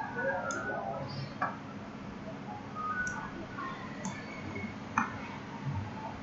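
Computer mouse clicks, two sharp ones about a second and a half and five seconds in, over a steady low hum of room noise.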